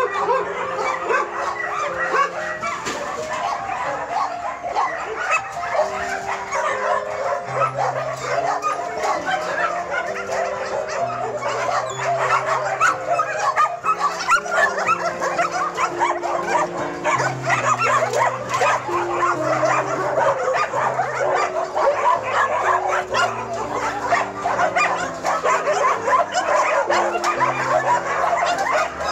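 A large crowd of kennelled shelter dogs barking, yipping and whining all at once in a continuous din, with background music of low held notes underneath.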